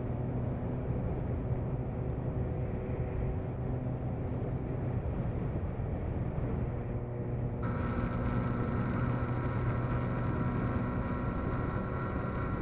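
A 2009 Yamaha FZ1N's inline-four engine, fitted with a Vance and Hines slip-on exhaust, running at a steady cruise with wind and road noise. About two-thirds of the way through, the sound changes abruptly and a thin, steady high whine joins in.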